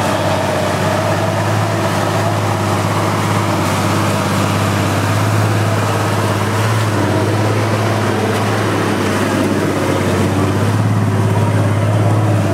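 Nissan Patrol 4x4's engine running with a steady low drone as it crawls slowly through deep mud under load.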